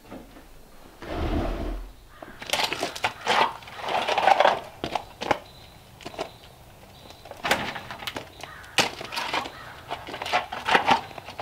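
A shovel digging into dirt and gravel, making repeated short scraping and crunching strikes in irregular bursts.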